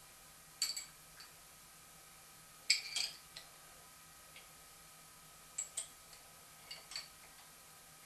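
Open-end steel spanner clinking against the milling setup's tailstock hold-down nut: several short metallic clinks with a brief ring, in small clusters a second or two apart.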